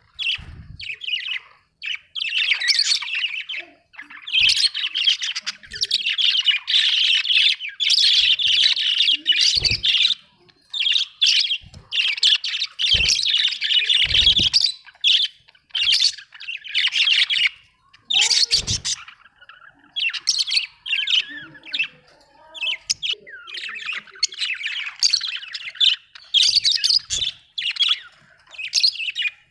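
Budgerigars chattering and chirping in rapid warbling bursts of a few seconds each with short pauses, mixed with harsher squawks, and a few soft low thumps.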